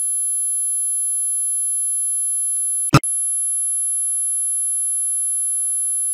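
Steady 11,000 Hz sine test tone, played on the left channel and then switched to the right, with a short click and break about three seconds in where it changes channel.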